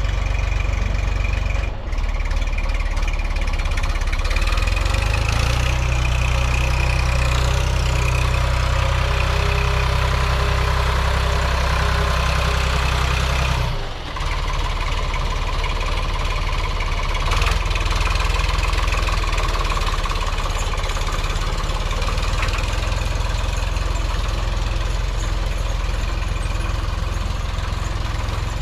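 Vintage John Deere tractor engine running steadily under way. The engine note dips briefly about two seconds in, then rises and holds higher until a sharp dip about fourteen seconds in, after which it settles back to a steady run.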